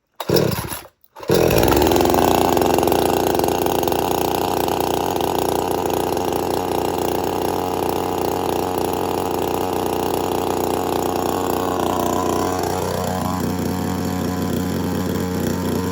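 Old two-stroke chainsaw pull-started with the chain brake on: a short pull, then the engine catches about a second in and runs steadily at the fast idle of its half-throttle start setting. Its pitch shifts briefly near the end.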